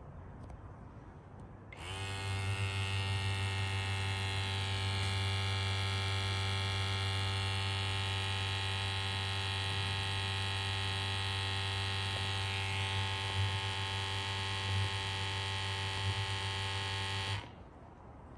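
Small internal sampling pump of a Dräger Multi-PID 2 photoionization monitor running with a steady hum. It starts about two seconds in and cuts off suddenly near the end.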